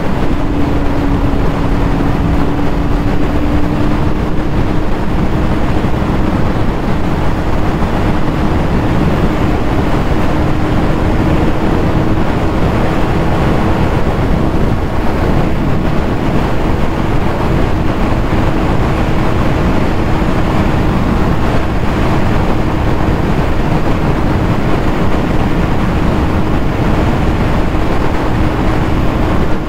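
Yamaha YZF-R6's 600 cc inline-four running at steady cruise, its note rising slightly in the first few seconds and then holding level, under heavy wind rush on the microphone.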